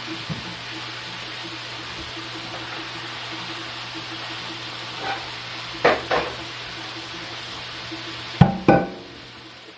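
Hamburger patties sizzling in a frying pan over a steady hiss from the range-hood fan. A utensil clinks against the pan twice about six seconds in, and two louder knocks come near the end, after which the hiss drops.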